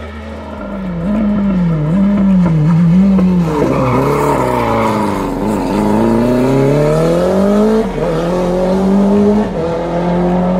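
Renault 5 Turbo hillclimb car working through a hairpin. The engine note rises and falls as it comes down the gears into the turn, with a brief tyre squeal mid-corner. It then accelerates hard away, the revs climbing and dropping at two upshifts near the end.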